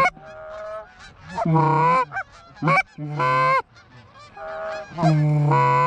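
Goose honking: a series of loud, drawn-out honks, each held about half a second, with fainter, shorter honks between them.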